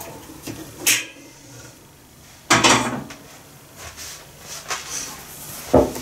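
Kitchen handling sounds: a few separate knocks and clunks as a kettle and ceramic mug are handled on the counter, the loudest about two and a half seconds in. Near the end comes another knock as the mug is set down on the table.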